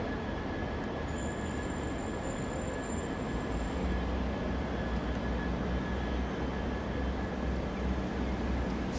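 Freight train rolling past on the rails: a steady rumble that grows a little heavier about halfway through, with a faint steady high whine over it.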